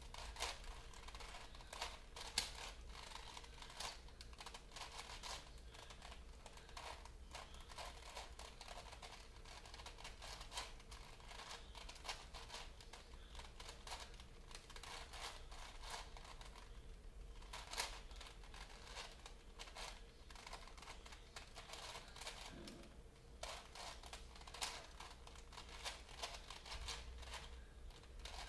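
Plastic Rubik's-type puzzle cube being turned quickly by hand: a steady run of small, irregular plastic clicks and clacks as the layers snap round, with a brief pause about three-quarters of the way through.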